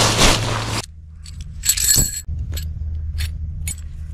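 Nylon tarp rustling loudly as it is handled, cut off after about a second, then a run of sharp metallic clinks as tent pegs and tarp poles are set down and knocked together.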